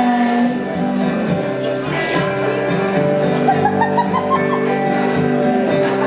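Live performance of a pop song: strummed acoustic guitar with a voice singing, recorded from within the audience. About halfway through a quick run of short notes climbs in pitch.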